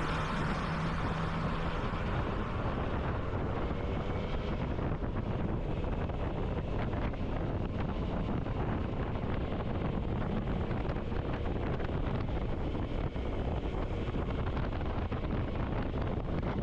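Wind rushing over the helmet- or bike-mounted camera microphone on a moving motorcycle, steady throughout, over the low running of the Yamaha MT-09 Tracer's three-cylinder engine at a cruise.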